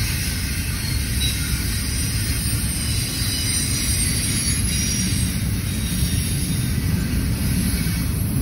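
Union Pacific intermodal train's double-stack container well cars rolling past, a steady, continuous noise of steel wheels on the rails.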